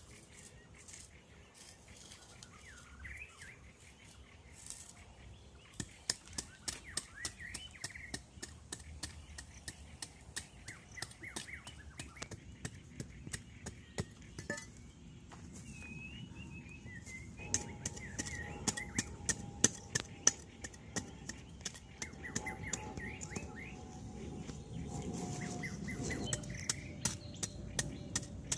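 Rapid sharp strikes of a sharpened wooden stick, then a machete blade, chopping into dry soil. The strikes come thicker and louder in the second half. Small birds chirp throughout, and a faint steady tone joins about halfway.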